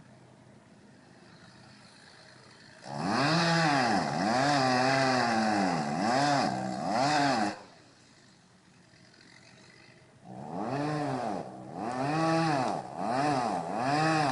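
Two-stroke chainsaw revved hard in repeated throttle bursts, its pitch rising and falling with each squeeze. One run of revs starts about three seconds in and lasts about four seconds; after a lull, a second run starts about ten seconds in.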